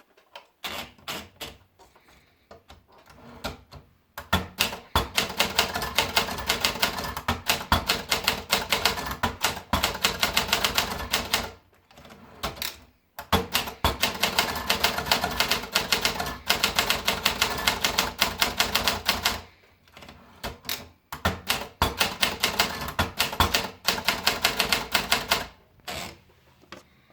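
Olympia Splendid 66 portable manual typewriter being typed on quickly, a rapid run of key strikes in three long stretches with short breaks between them.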